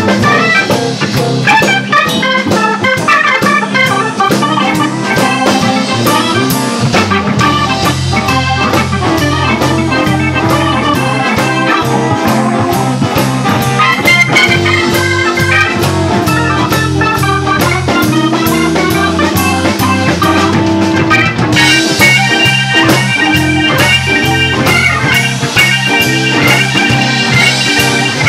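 Live blues band playing an instrumental section, led by a Hammond-style organ sound from a Nord Stage keyboard, over bass and a steady drum beat. The band's sound grows brighter and busier about three quarters of the way through.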